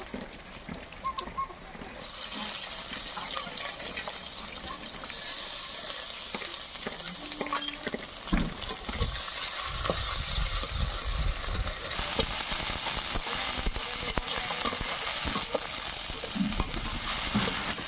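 Fish pieces sizzling in hot oil in an aluminium kadai over a wood fire, stirred with a metal ladle that scrapes and clicks against the pan. The sizzle grows louder about two seconds in and again about twelve seconds in.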